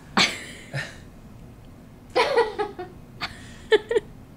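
A newborn baby making a few short vocal sounds: a brief breathy burst just after the start, then small high-pitched grunts and whimpers in the second half.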